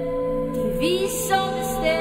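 A cappella female vocals: layered voices hold a sustained chord, with one voice sliding up in pitch just under a second in and two short hissed consonants near the end.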